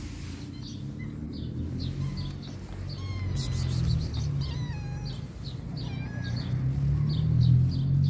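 Street cat meowing for food, several short wavering meows from about two seconds in, with small birds chirping.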